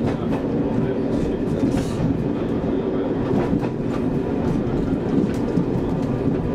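Class 101 diesel multiple unit running at nearly 25 mph in fourth gear, heard from the driver's cab: a steady diesel engine hum over the rumble of wheels on rail, with a few light clicks from the wheels.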